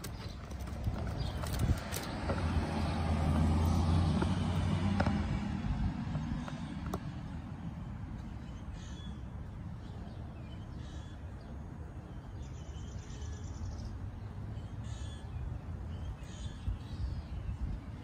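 A motor vehicle passing by, its low engine hum swelling for a few seconds and fading away. Later there are a few faint, short high chirps over quiet outdoor background.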